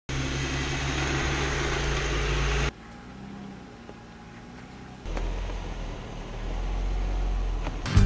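Jeep Wrangler engine running in short off-road clips. It is loud with a rushing hiss for the first two and a half seconds, drops away abruptly to a quieter stretch, and from about five seconds in a low rumble builds again.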